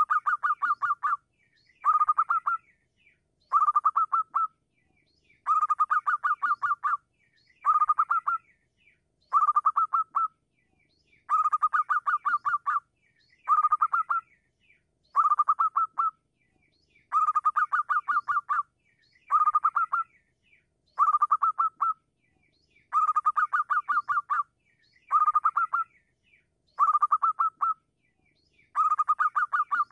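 Zebra dove (perkutut) singing its cooing song: phrase after phrase of rapid staccato coos, each phrase about a second long and repeated about every two seconds.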